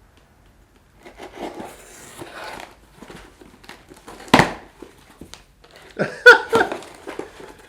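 Hands handling a mailed package and its contents: rustling packaging, a sharp click about halfway through, and a few more clicks and knocks near the end.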